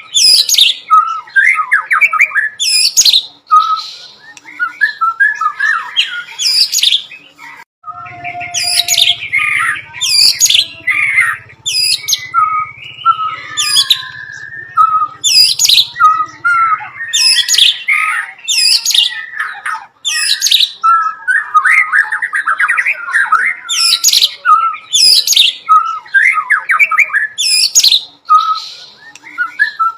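White-rumped shama singing continuously in fast repeated phrases: sharp sweeping whistles alternate with lower chirping notes, with a short break about eight seconds in. Its song is packed with mimicked bar-winged prinia (ciblek) calls.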